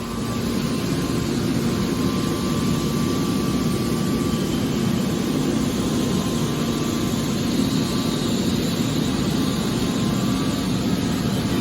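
Hydraulic scrap car baler running: a steady, heavy mechanical drone that gets louder just after the start.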